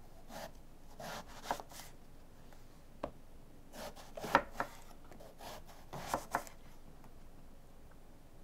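A chef's knife slicing lengthwise through Chinese eggplant and knocking down onto a wooden end-grain cutting board: several separate cuts with sharp knocks, the loudest about four seconds in.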